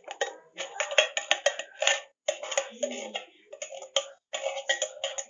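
A tin can of sweet corn rattling and clicking against a plastic strainer as the kernels are tipped out, in quick irregular runs of taps with short pauses.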